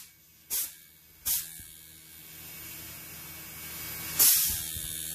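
Inverter air-conditioner compressor running unloaded, its outlet held shut by hand and let go: short hissing spurts of compressed air about half a second and just over a second in, a hiss that builds, then a louder burst of air about four seconds in, over a low steady hum.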